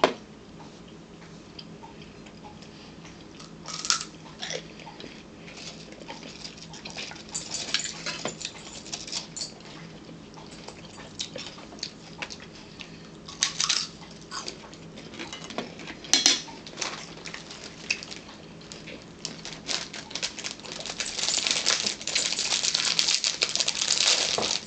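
Scattered clinks and scrapes of a metal fork on a ceramic plate during a meal. Near the end comes a long stretch of crinkling as a plastic sleeve of crackers is handled and opened.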